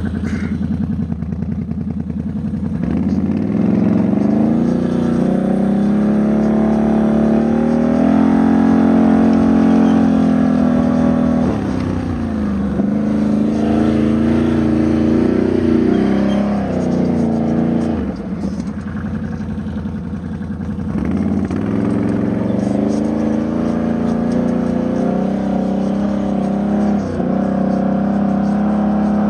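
ATV engine running under load as it tows a disc harrow through soil, its revs rising and falling again and again, with several brief drops in pitch.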